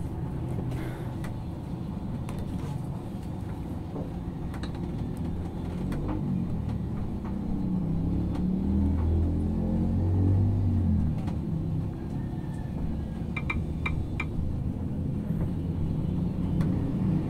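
Low, steady rumble of a motor vehicle engine, swelling to its loudest about eight to eleven seconds in, with a few short high clicks around thirteen to fourteen seconds in.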